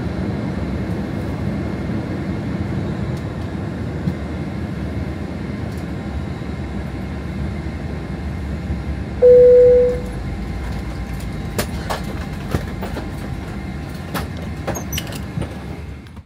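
Airliner cabin noise: a steady low rumble, with a single loud chime tone about nine seconds in, then scattered sharp clicks near the end.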